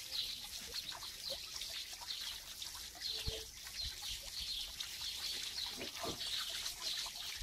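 Outdoor ambience of small birds chirping over and over in quick bursts, with water trickling faintly underneath. A soft knock sounds about three seconds in.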